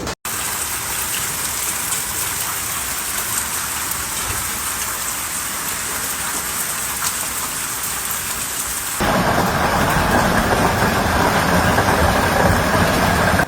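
Hailstones and heavy rain pelting down: a dense, steady hiss full of small hits. About nine seconds in it changes abruptly to a louder, harsher downpour.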